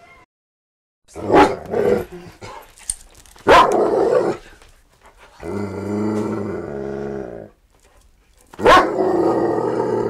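A dog barking loudly three times, with a growl of about two seconds between the barks.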